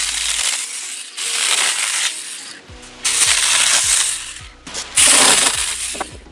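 Saker 4-inch mini cordless electric chainsaw cutting through small tree branches in four bursts of about a second each, the chain tearing through the wood, with pauses between cuts.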